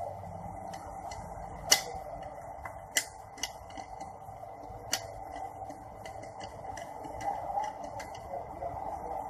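Scattered sharp metallic clicks and taps of gearbox parts and tools being handled during manual gearbox assembly, about five in all, the loudest about two seconds in, over a steady hum.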